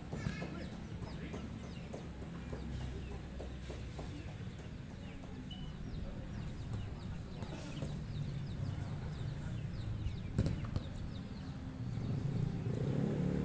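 Outdoor ambience: many short bird calls over a steady low hum, and a sharp thud of a ball being kicked about ten seconds in. A louder low drone builds near the end.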